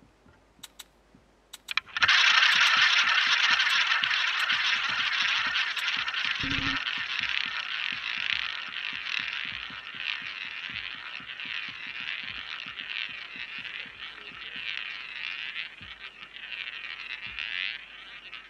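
Roulette ball rolling around the wooden ball track of a spinning roulette wheel: a sudden steady rushing whir that starts about two seconds in as the ball is launched, then slowly fades as the ball loses speed and drops out near the end. A few sharp clicks come before the launch.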